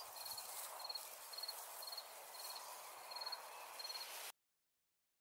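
Faint cricket chirping, short high chirps repeating evenly about twice a second over a soft hiss of outdoor ambience; it cuts off abruptly about four seconds in.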